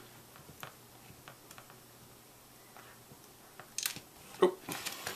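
Small hardware being handled while a short 4-40 screw is fitted through a plastic rod end into a lock nut on a wooden robot arm: faint scattered clicks, then a few sharper clicks and knocks about four seconds in.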